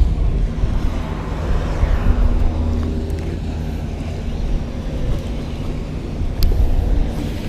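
Wind rumbling on the microphone, with a motor engine humming in the background, clearest two to three seconds in. A single sharp click near the end.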